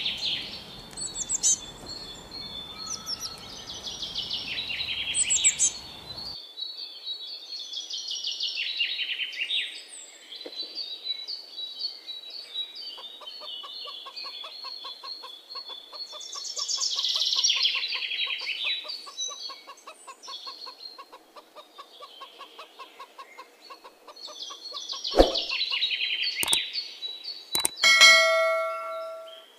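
Songbirds singing repeated high, trilling phrases, with a rapid run of soft pulsed calls from chickens through the middle. A few sharp clicks come late on, and a short, loud call with a rich, buzzy tone is the loudest sound, near the end.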